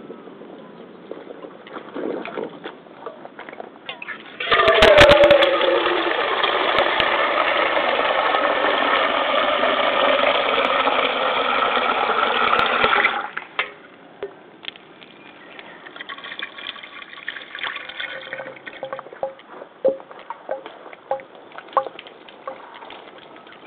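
Tap water pouring onto rubber fishing hip waders (Daiichi Gum crotch boots) as the mud is rinsed off. About four seconds in it turns to a loud, full rush for some eight seconds, then drops back to lighter splashing and dripping on the rubber.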